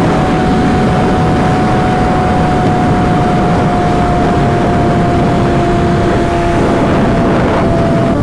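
Yamaha R6 sport bike ridden at a steady pace, its engine note holding nearly constant and sinking slightly in pitch under heavy wind noise on the microphone.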